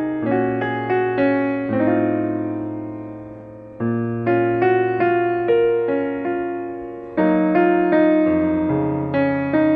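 Background piano music: struck notes and chords, about two a second, each fading after it is played, over held low bass notes.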